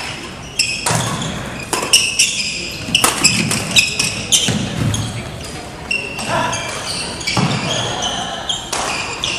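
Badminton rally on a wooden gym floor: rackets sharply striking the shuttlecock again and again, court shoes squeaking on the floor, and footfalls.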